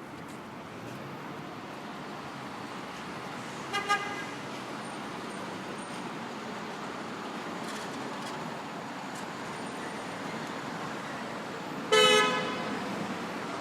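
City street traffic running steadily with car horns: two quick short honks about four seconds in, then a louder, longer honk near the end.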